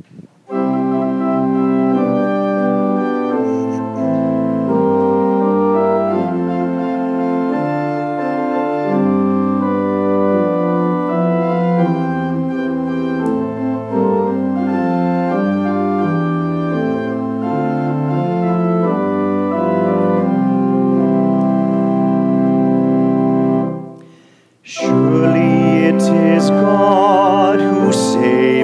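Organ playing slow sustained chords over a stepping bass line, stopping about 24 seconds in. About a second later different music begins, with a wavering vibrato tone.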